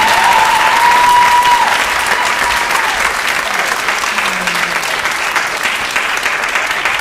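Theatre audience applauding at the end of a song, the clapping loud at first and gradually dying down.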